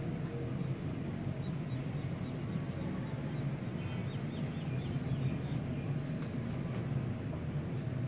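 Steady low background rumble, with a short run of faint high bird chirps about three to five seconds in.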